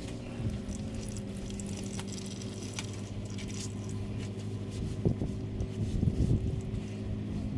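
Hand-tool and handling noises from removing an engine oil filter: scattered metallic clicks and scrapes, busiest about five to six and a half seconds in, over a steady low hum.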